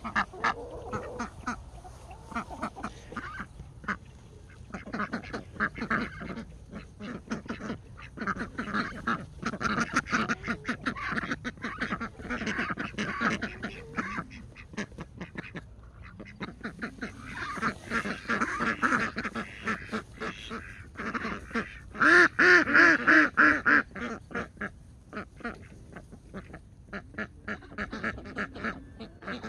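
A flock of ducks quacking, many short calls in quick runs, with the loudest run about three-quarters of the way through.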